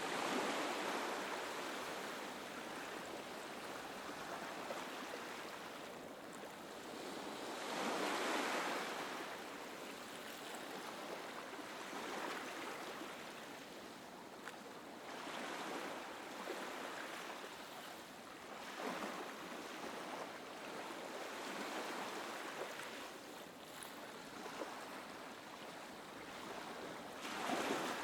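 Calm, gentle ocean waves rolling in and washing up the beach: a steady surf hiss that swells each time a wave breaks, most strongly about eight seconds in and again near the end.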